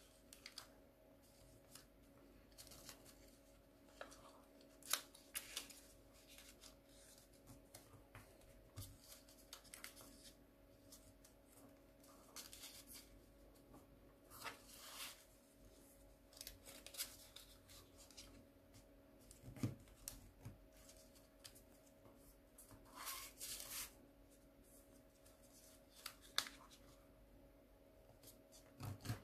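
Origami paper being handled, folded and creased by hand: faint scattered rustles, crinkles and short taps, with a longer rustle a little past two-thirds of the way in. A faint steady hum sits underneath.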